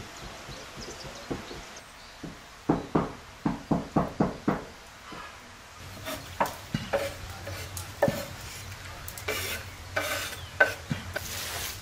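Hands kneading and mixing minced beef with chopped onion and parsley on a metal tray: a quick run of about eight wet slaps a few seconds in, then slower squelches and squishes.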